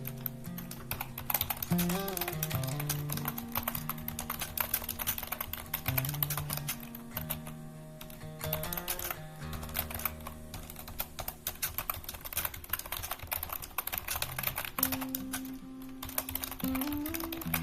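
Continuous rapid typing: a dense patter of key clicks, over soft instrumental music.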